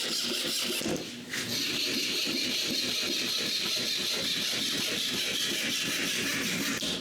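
Woodworking power tool running steadily, with a short break about a second in, then running on until it cuts off near the end.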